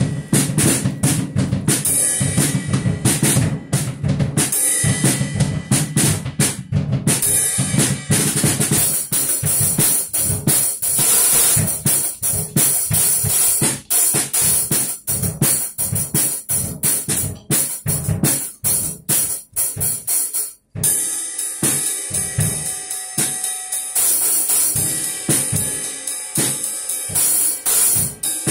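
Music with a loud, busy drum kit of bass drum, snare and cymbals. It cuts out for an instant about two-thirds of the way through.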